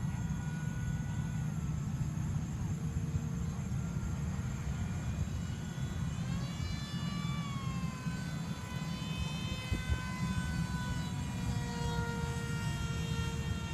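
Motor of a remote-control F-22 model plane whining in flight, its pitch sliding down and up several times as it passes and changes throttle, over a steady low rumble.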